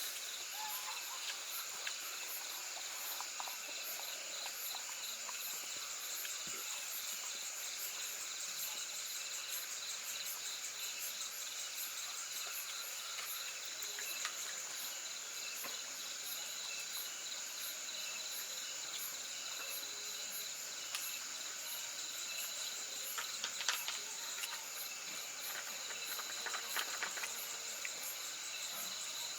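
Insects chirring steadily in a continuous chorus: a high, even drone with a rapid pulsing chirp above it. A few faint taps come near the end.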